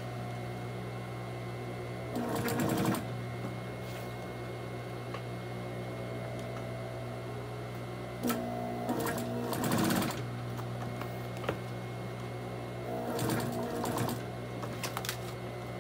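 Industrial straight-stitch sewing machine: its motor hums steadily, with three short runs of stitching about two, eight and thirteen seconds in.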